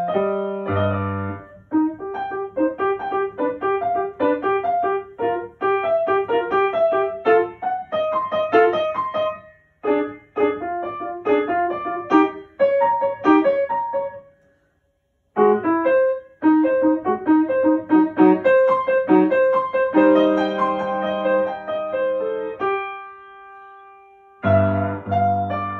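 Grand piano played solo in quick runs of notes, breaking off for about a second midway, then resuming, with a chord held for a couple of seconds near the end before the runs start again.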